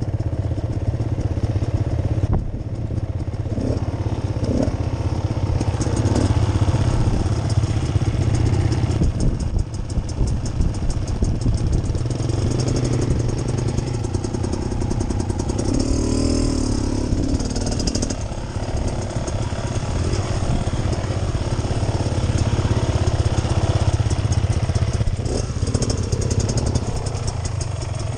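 Beta Xtrainer 300 two-stroke dirt bike engine running steadily at low revs, its loudness rising and falling slightly with the throttle.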